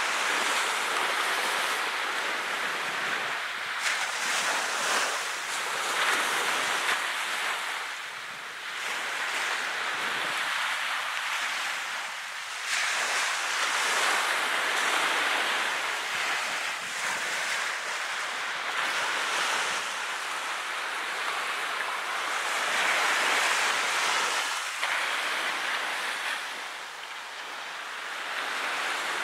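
Small ocean waves breaking and washing up a sandy beach, the surf swelling and easing every few seconds.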